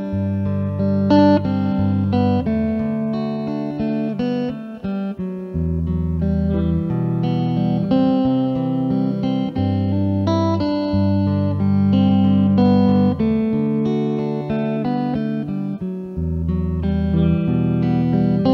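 Instrumental guitar music: a guitar melody over low, held bass notes.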